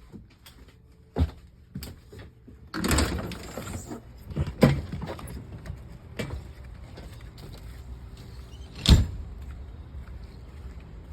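A motorhome's entry door and steps handled as someone goes outside: scattered knocks and clunks, a short rattling rush about three seconds in, and a loud bang near nine seconds as the door is shut.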